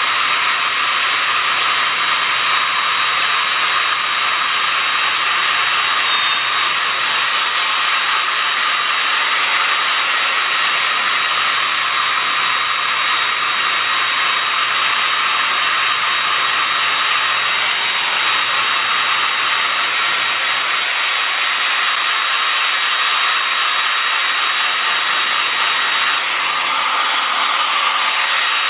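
Handheld hair dryer blowing steadily at close range, a thin high whine over the rush of air.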